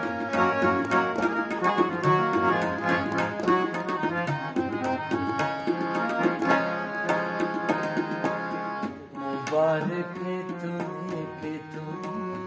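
Harmonium and tabla playing an instrumental passage: the harmonium holds the melody in sustained reed notes while the tabla keeps a steady run of strokes, with a brief lull about nine seconds in.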